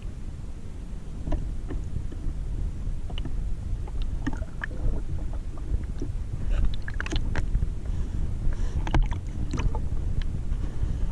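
Underwater ambience: a steady low rumble with scattered short clicks and crackles, thickest a little past the middle, with one sharp click near the end.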